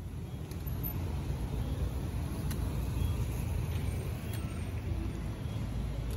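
Street traffic: cars driving past on the road, a steady low rumble, with a few faint clicks.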